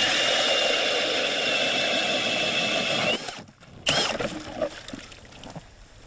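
Cordless drill spinning an ice auger, boring a fishing hole through lake ice: a steady motor whine over the grind of the blades in the ice, cutting off about three seconds in.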